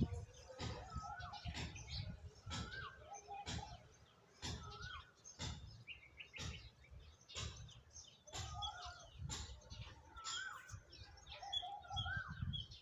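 Birds calling, a short rising-and-falling whistled note repeating every second or so with lower chattering notes between, over regular sharp taps about once a second.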